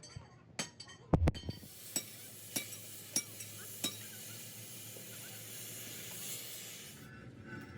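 Arc welding on a truck front axle: a steady sizzling crackle starts about a second and a half in and cuts off abruptly near the end. A few sharp metal knocks come before it, the loudest just after a second in, and regular sharp ticks sound about every two-thirds of a second while it runs.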